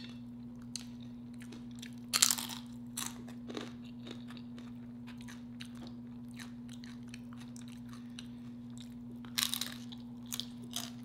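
Crunchy tortilla chips of chili cheese nachos being bitten and chewed close to the microphone: a loud crunch about two seconds in, scattered small crunches, and another run of crunching near the end. A steady low hum lies underneath.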